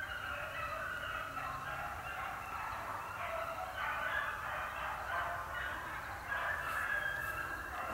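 Pack of beagles baying on a rabbit's track, several hound voices overlapping without a break.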